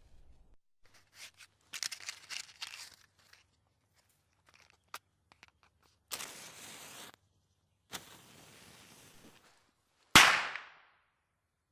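Fireworks going off: clusters of sharp crackling pops, a single crack, and stretches of hissing crackle, then one loud bang near the end that dies away quickly.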